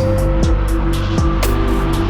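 Background music: held notes with drum hits.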